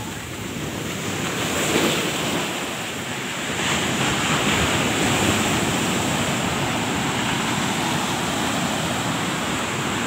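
High sea waves breaking against the rocks of a seawall: a steady rush of surf that swells about two seconds in and again about four seconds in.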